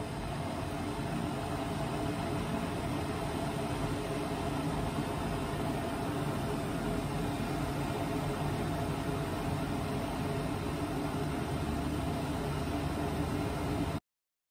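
Steady hiss and low rumble of a stainless steel saucepan of water heating on the stove, small bubbles forming before the boil; it cuts off suddenly near the end.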